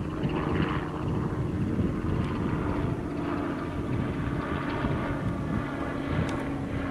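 Freight train of covered hopper wagons rolling slowly past: a steady low rumble of wheels on rail, with a steady hum running through it.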